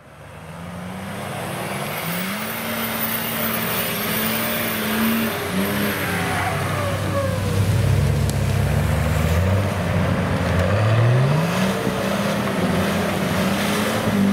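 Off-road 4x4 SUV engine working hard in low range over a leaf-covered slope, revving up and easing off several times.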